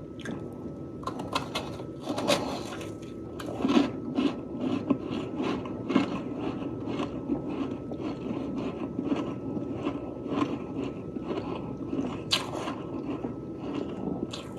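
Close-miked chewing of soft, fluffy freezer frost, crunching in a quick steady rhythm, with a few louder crunches.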